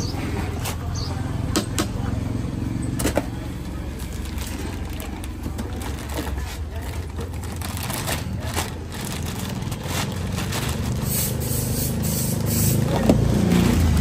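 Unboxing noises: scattered clicks and scrapes of cardboard box flaps being opened, and plastic wrapping rustling as a 15-inch speaker is pulled out of its box, over a steady low rumble.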